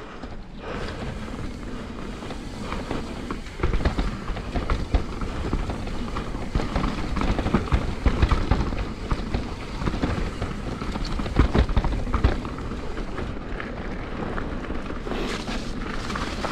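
Mountain bike riding fast down a dirt singletrack: a steady rush of tyre and wind noise, broken by frequent irregular clattering knocks as the bike hits bumps, growing busier a few seconds in.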